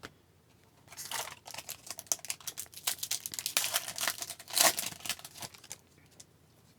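A hockey card pack's wrapper being torn open and crinkled, a dense run of crackling that starts about a second in and dies away a second before the end.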